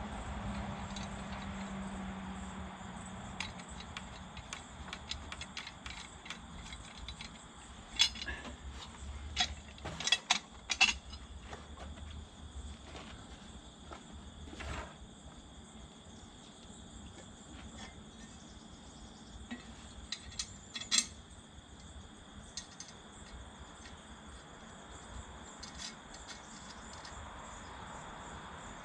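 Scattered light metallic clinks and knocks of steel parts being handled, loudest in a cluster around the middle and once more later, over a steady thin high-pitched background tone.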